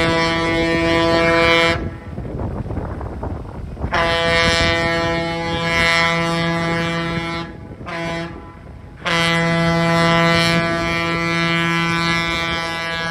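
Air horn of the 1940 EMD E5A diesel locomotive CB&Q 9911A, blown as the train approaches: the tail of a long blast, another long blast, a short one, then a final long blast that is still sounding at the end. This is the long-long-short-long signal for a grade crossing. Between the blasts the running train can be heard.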